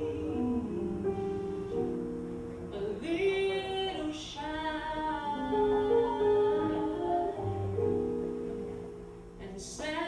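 A woman singing a jazz ballad into a microphone, with long held notes that waver, over sustained keyboard chords. Her voice swells in the middle and comes in again near the end.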